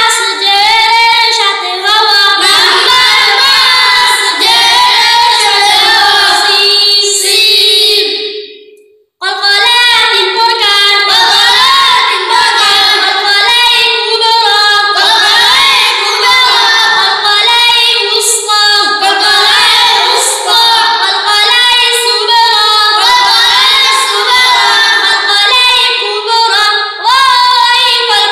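Children's voices chanting together in a sing-song tune, reciting tajweed lessons on the levels of the heavy letters and the types of qalqalah. The chant stops briefly about eight seconds in, then picks up again.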